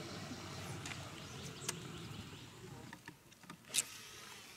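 Fishing reel being wound in during a lure retrieve: a faint steady whir, with a sharp click about a second and a half in and a louder one near the end.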